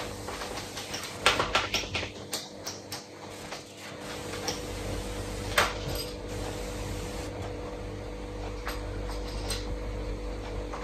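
Light clicks and knocks of kitchen handling over a steady hum, with a low steady rumble setting in about four seconds in.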